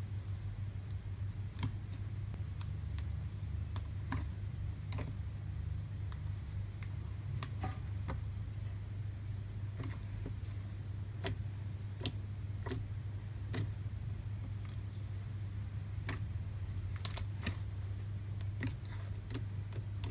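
Thick white cornstarch-and-shaving-foam slime being kneaded and pressed by hand, giving irregular sharp clicks and pops, about one or two a second, over a steady low hum.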